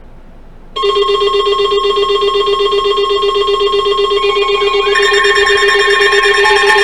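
Emergency alert tone on weather radio: a loud, steady, unbroken tone cuts in over faint radio hiss about a second in, and a second alert tone joins about five seconds in, making the sound harsher. It is the attention signal that comes before a severe thunderstorm warning is read.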